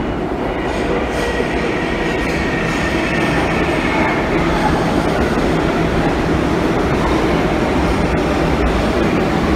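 Kawasaki R62 subway train pulling into an underground station, a steady loud rumble of wheels and motors that grows louder over the first few seconds. A faint high whine runs through its first few seconds.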